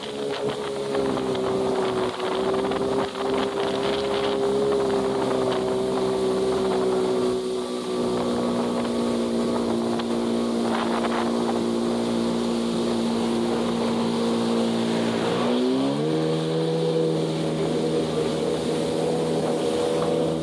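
Jet ski engine running under way, with water spray and wind noise over it. Its pitch sags slowly, then about three-quarters of the way through rises quickly and holds steady at a higher pitch.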